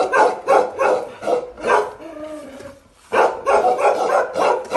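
Bakarwal guard dog barking aggressively in quick repeated barks, about three a second. A break of about a second comes around two seconds in, then a faster run of barks follows.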